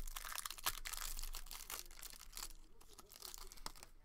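Foil wrapper of a trading-card pack being torn open and crinkled by hand, with dense crackling for the first couple of seconds that then thins to a few scattered crinkles.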